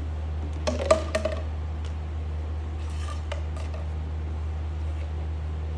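A few sharp metallic clinks of hand tools and removed bolts knocking together, clustered about a second in, with a lighter clink or two around three seconds, over a steady low hum.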